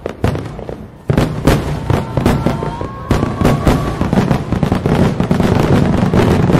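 Aerial fireworks bursting: a few separate sharp bangs, then from about a second in a dense, rapid run of bangs and crackling.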